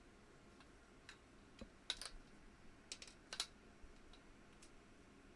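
Faint, scattered clicks and light taps, about eight in all at an uneven pace, the strongest two small clusters near the middle.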